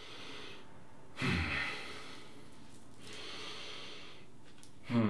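A man sniffing deeply through his nose in long draws, with the strongest sniff a little after a second in and another long one from about three seconds; a brief hum from his voice comes at the very end.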